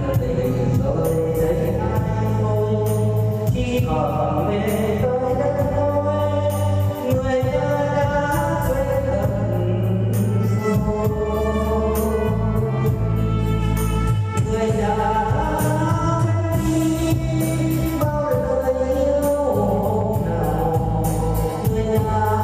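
Music: a melodic lead line, sung or played, over a steady keyboard-style accompaniment with a continuous bass.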